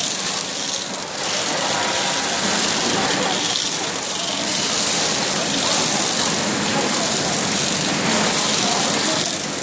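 Automatic shrink-sleeve labelling machine on a bottled-water line running, a steady rushing hiss of machinery that dips briefly about a second in and again near the end.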